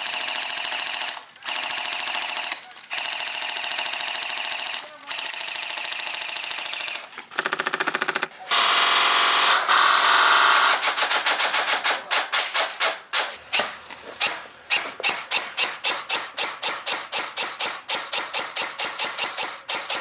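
Airsoft guns firing full-auto in several long bursts with short pauses between them, then a rapid string of separate shots.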